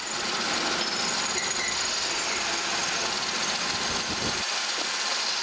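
Metal lathe running, its chuck spinning a steel bolt blank: a steady, loud mechanical hiss with a thin high whine, its low rumble dropping away about four seconds in.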